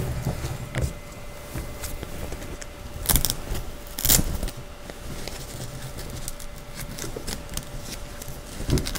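Fabric rustling and hook-and-loop tape being handled as the liner skirt's tape strips are wrapped around the bassinet's metal frame bars and pressed shut, with two short, louder rasps about three and four seconds in. A faint steady hum sits underneath.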